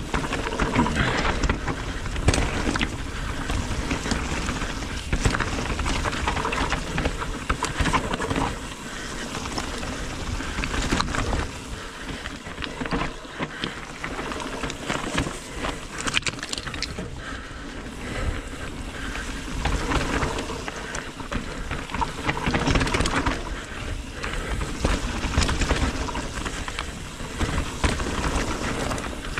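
Mountain bike riding fast down a dirt and loose-gravel trail: tyres crunching and skidding over the ground, the bike rattling over bumps, and wind rushing over the camera microphone, with the level rising and falling through the turns.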